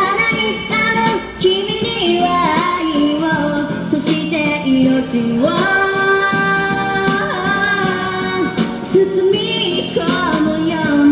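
A woman singing a slow Japanese pop ballad into a handheld microphone, amplified over a recorded backing track. She holds one long note through the middle.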